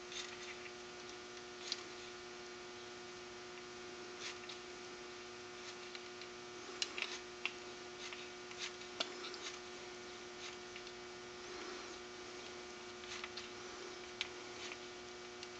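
Steady faint electrical hum, with scattered light clicks and taps as a hot glue gun is worked around a plastic soda bottle cap and brake-line tube.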